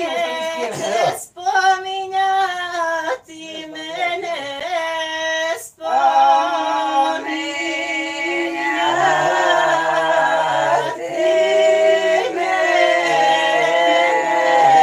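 Unaccompanied folk singing by several voices, in long drawn-out held notes with brief breaths between phrases. A lower voice joins beneath about nine seconds in.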